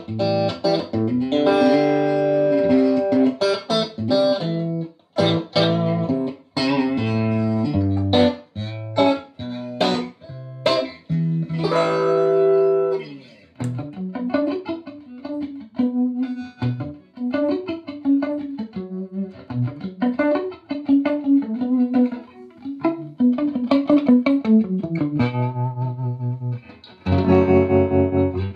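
Electric guitar played through a Fender Excelsior tube combo amp with push-pull 6V6 power tubes. It plays struck chords with short breaks for the first half, then quieter single-note lines, and ends on a louder, fuller chord.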